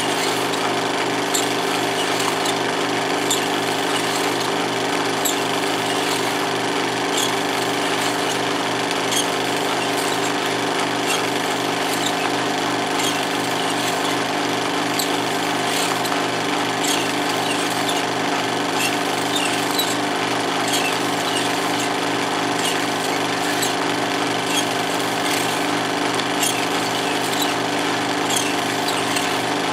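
16mm film projector running: a steady mechanical clatter from its motor and film-pull mechanism, with light ticks about once a second.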